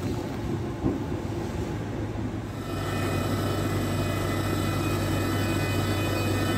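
Electric train running at a station: a low rumble at first, then, from about three seconds in, a steady electric hum with several high, even whining tones over it.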